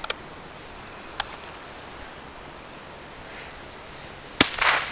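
A single .22 Long Rifle shot firing a CCI Blazer round, a sharp crack about four seconds in followed by a brief trailing rush of noise, with a couple of small clicks from handling the gun beforehand.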